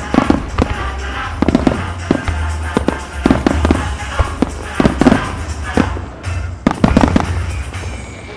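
Aerial firework shells bursting in quick volleys, many sharp booms and cracks in clusters, over music played with the display. The bursts thin out near the end.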